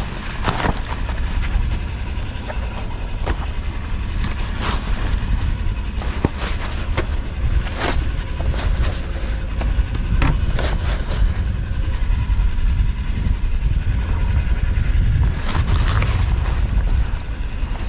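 Wind rumbling on the microphone, with a sail's cloth rustling and crackling in sharp bursts now and then as it is bundled and lashed by hand.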